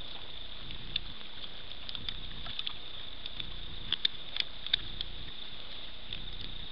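Feral pigs rooting and feeding close to the microphone at night: scattered short clicks and crunches, a cluster of them about four seconds in, over a steady high-pitched hum.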